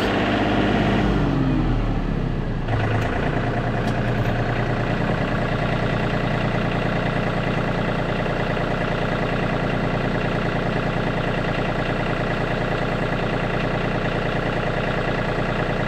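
Tractor engine dropping from a higher speed to idle over the first couple of seconds, then idling steadily.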